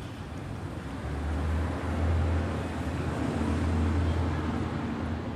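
Heavy city-street traffic, with one vehicle passing close by: a deep engine sound swells about a second in and eases off near the end, over a steady wash of traffic noise.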